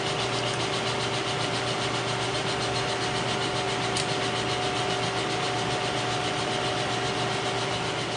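Kearney & Trecker 2HL horizontal milling machine running with the spindle on and power feed engaged: a steady gear-train whine of two held tones over a fast, even mechanical rattle, with a single click about four seconds in.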